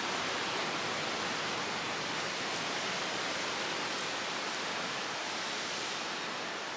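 Steady, unbroken rushing of water, an even hiss with no single splashes standing out.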